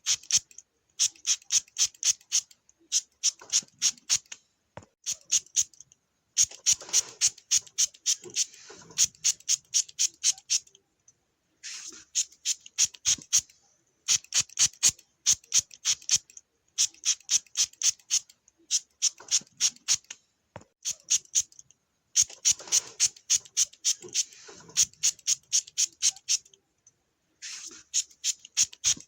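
Hand-pump spray bottle squirted over and over, short sharp hisses several a second, in runs of a few seconds with brief pauses between.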